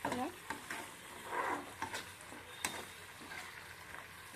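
A spatula stirring a thick mixture of greens in a wok, sizzling now that the water has cooked off, with scraping and a few sharp knocks of the spatula against the pan, the sharpest about two and a half seconds in.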